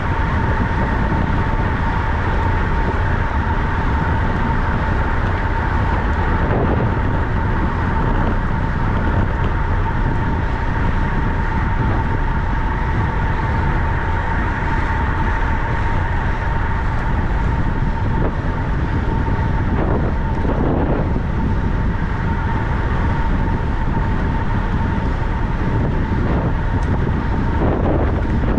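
Steady rush of wind on the microphone and rolling noise of a track bicycle being ridden, with a constant high whine throughout.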